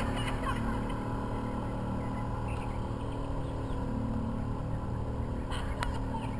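Motorboat engine running steadily at speed, a constant drone mixed with the rush of water and wind.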